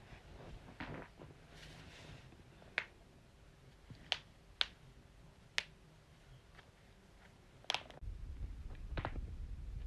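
Joints cracking: a series of sharp single pops, about seven spread over several seconds, two of them close together near the middle.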